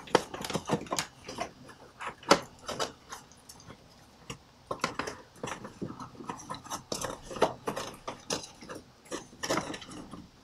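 Irregular clicks, knocks and light rattles of hands fitting a thin quarter-inch plywood board and handling amplifier cables on the car floor, with a short lull about four seconds in.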